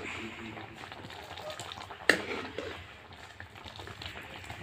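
A metal ladle stirring a ripe-mango curry in a metal kadhai, with one sharp knock about two seconds in, the loudest sound, as the ladle strikes the pan.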